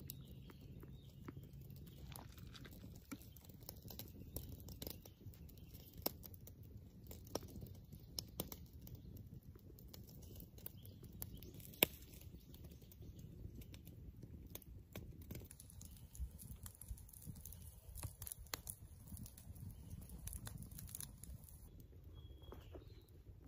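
Wood campfire crackling, with scattered sharp pops over a low rumble and one loud pop about twelve seconds in. A few faint bird chirps come near the start and the end.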